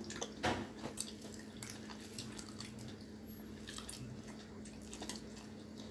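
People eating with chopsticks: chewing and biting on vegetables, with scattered light clicks of chopsticks on bowls, over a low steady hum.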